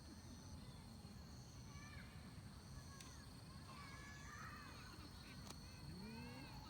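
Faint outdoor ambience: scattered distant calls, voices or birds, over a steady faint hiss and thin high steady tones.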